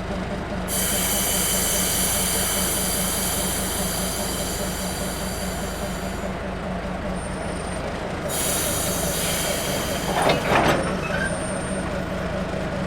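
Diesel locomotive running steadily, with two long hisses of air from its brake system and a brief squeal about ten seconds in.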